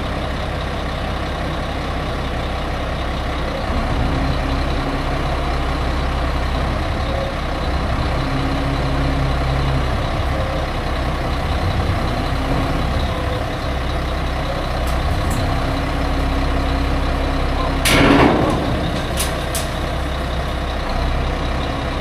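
Diesel engine of a 2000 Mack RB dump truck running steadily to drive the hoist as the dump bed is raised, its note getting louder about four seconds in. Near the end there is one short, loud burst of air hiss.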